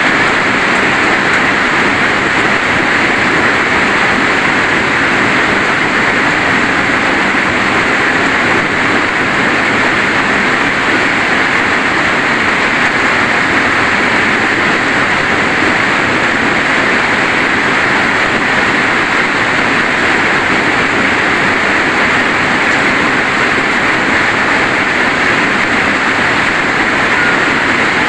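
Steady heavy rainfall, an even, unbroken hiss that holds at the same level throughout.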